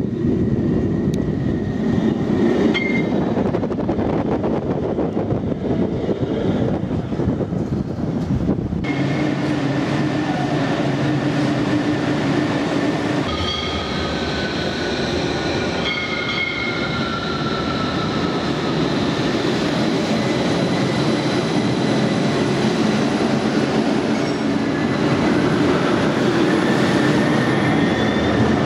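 CAF Urbos 3 low-floor tram running on its rails: steady wheel rumble and drive hum, with thin high whines and squeals of the wheels. About halfway through, a whine glides slowly down in pitch.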